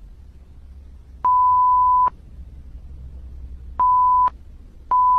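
Censor bleep: a steady 1 kHz tone that cuts in and out sharply three times. The first is under a second long and starts about a second in, the second is a short one near four seconds, and the third starts near the end.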